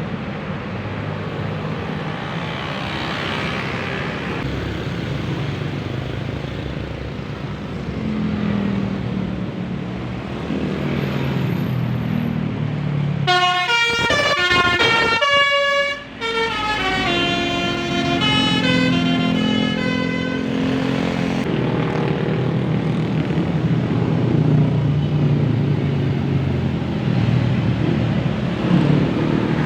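A bus engine running, swelling and easing as the bus passes. About halfway through a telolet musical horn plays a quick tune of stepped notes for around seven seconds, with a brief break partway.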